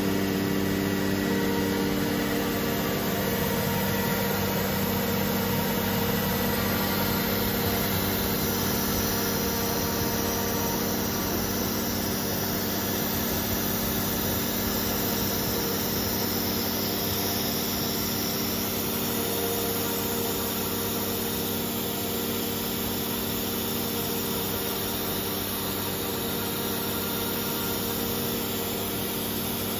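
Techno LCX 59120 CNC router engraving lettering into MDF with a V-bit: the HSD electro spindle runs steadily as the bit cuts, along with the steady hum of the Becker VTLF 250 vacuum pump holding the sheet on the vacuum table.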